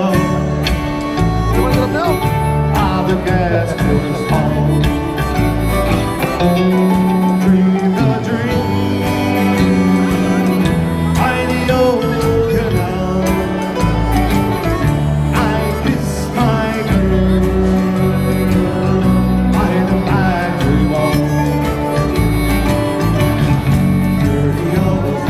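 Live band playing a Celtic folk song, with singing over strummed acoustic guitar and a steady bass and drum beat.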